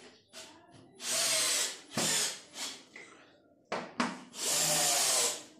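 Power drill running in several bursts while screws are driven into a chair frame: a burst of nearly a second, two short ones, and another long one near the end, whose motor whine drops in pitch.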